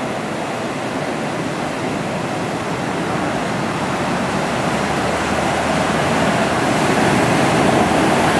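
Ocean surf breaking and churning into whitewater: a steady rushing that swells a little toward the end.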